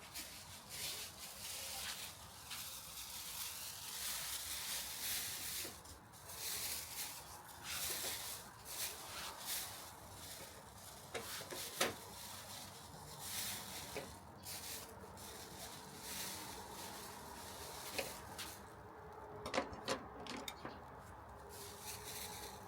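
Irregular rubbing and brushing strokes of hand work on wood, with a few sharp clicks and knocks.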